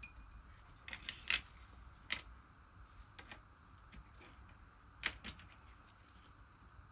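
Scattered small clicks and taps of hands-on brush painting, fabric paint being dabbed onto a foam figure's feet, some taps coming in quick pairs, over a faint steady hiss.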